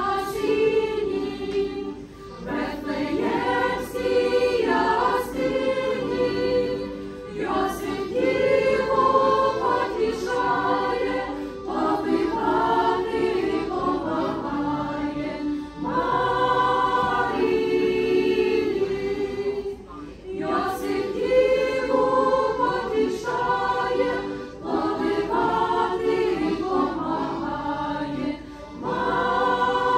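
Church choir singing a Ukrainian Christmas carol (koliadka), phrase after phrase with short breaks for breath about every four seconds.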